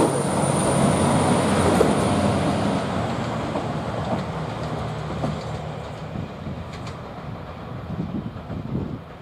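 JR Hokkaido KiHa 261 series diesel express train pulling out and running off into the distance, its engine and running noise fading steadily. A high thin whine dies away about three seconds in.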